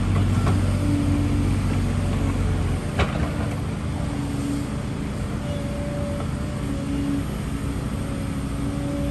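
Diesel construction machinery, a tracked excavator and a small ride-on roller, running steadily. A low hum drops away about three seconds in, at a single sharp click.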